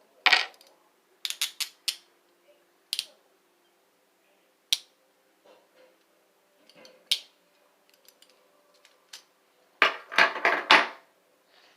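Steel handcuffs being handled: scattered sharp metallic clicks and clinks, a few single ones, then a quick cluster of louder clinks about ten seconds in.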